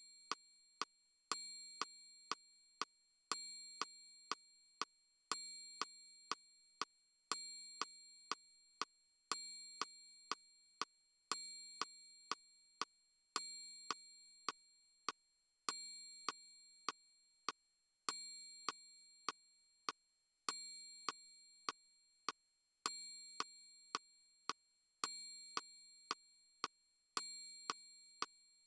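Casiotone SA-50 mini keyboard sounding a repeating electronic pattern: a bell-like ding roughly every two seconds that rings and fades, with lighter ticks between, like a metronome count.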